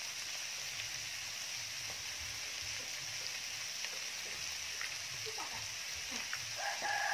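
Meat and vegetables sizzling steadily in a hot pan, an even hiss with a few faint crackles.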